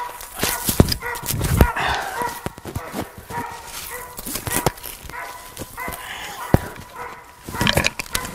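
Squirrel dog barking again and again at a tree, treeing a squirrel, with a few sharp knocks in between.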